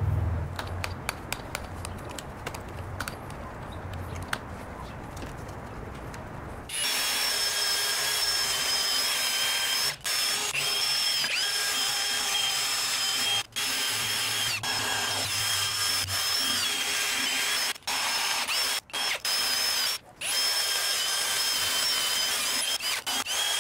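Cordless drill spinning a foam polishing pad with scratch-remover compound over an alloy wheel rim. Its motor whines steadily, with a few brief breaks. For the first several seconds there is only a quieter low hum with light ticks, before the whine starts.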